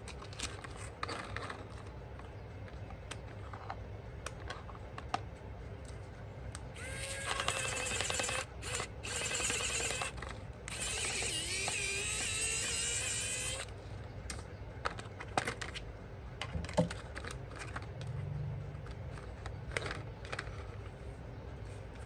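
A small electric motor whirring in three bursts over about seven seconds, its pitch wavering, among light clicks and taps of plastic being handled.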